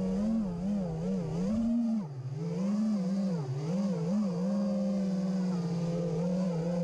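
Armattan Chameleon 5-inch FPV quadcopter's four 2206 2300kv brushless motors with DAL 5046 props whining in flight, the pitch rising and falling as the throttle changes. A low rumble sits under it for the first two seconds.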